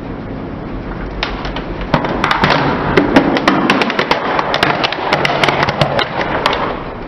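Plastic toy Lamborghini being crushed under a car tyre: about a second in, its body begins to crack, then a dense run of sharp snaps and crackles follows for several seconds before thinning out near the end.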